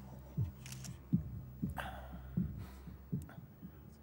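Suspense score for a TV drama: a low sustained drone under soft, heartbeat-like thuds, a little over one a second, with a few faint rustles between them.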